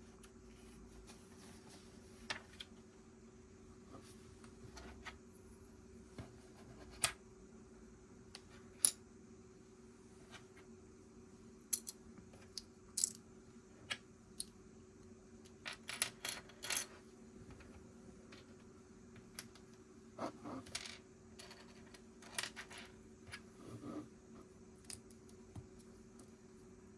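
Small plastic Lego pieces clicking and clattering as they are handled and fitted together, in scattered sharp clicks with quicker clusters now and then, over a steady low hum.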